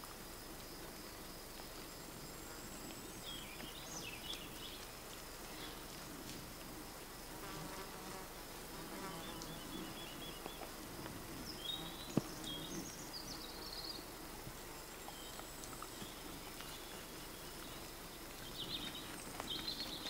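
A flying insect buzzing close by over a steady high thin whine, with short bird chirps a few times. There is a single sharp tick about midway.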